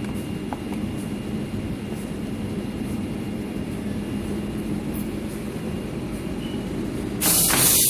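High-frequency PVC clamshell welding machine running with a steady hum. About seven seconds in, a loud hiss starts suddenly.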